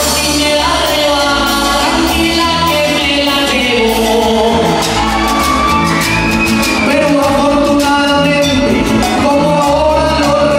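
A man singing rhymed trova verses into a microphone over a steady strummed accompaniment of tiple and guitars.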